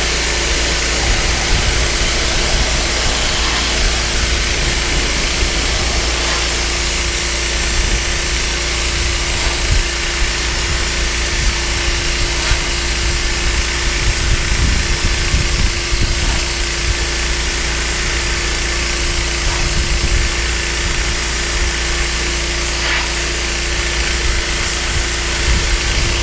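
Engine-driven pressure washer running steadily, its water jet hissing against wooden deck boards.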